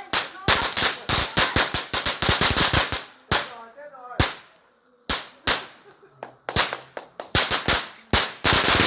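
Fireworks going off in rapid runs of sharp bangs and cracks, pausing for about a second and a half midway before firing again in quick bursts.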